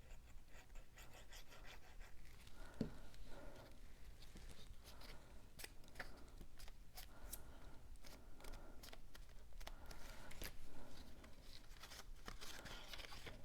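Cardstock pieces being handled and pressed together while gluing: faint scattered taps, clicks and paper rustles.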